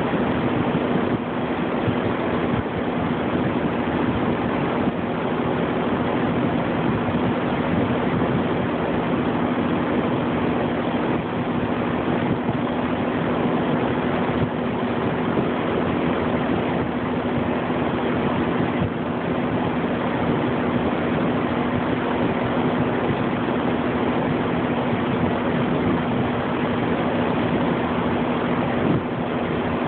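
Air-conditioner condenser fan running steadily, air rushing through the coil fins with a steady low hum, while the compressor stays off, a sign of a broken compressor.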